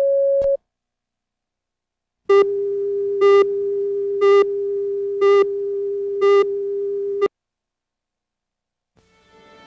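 Videotape leader tones: the reference tone under the colour bars cuts off half a second in. After a short gap a lower steady slate tone sounds for about five seconds, with five short, brighter beeps about a second apart, and stops suddenly. Faint music begins fading in near the end.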